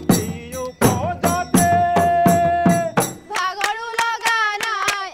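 Assamese Bihu folk music: dhol drumming with singing for about three seconds, then it changes abruptly to women singing a Jeng Bihu song over rhythmic handclaps.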